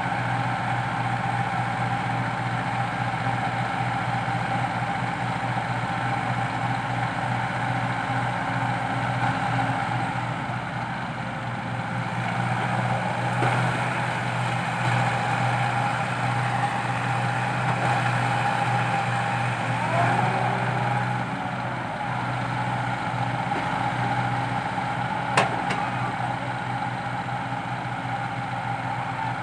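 Komatsu PC80 excavator's diesel engine running steadily under working load as it digs soil and swings to load a dump truck. A single sharp knock comes near the end.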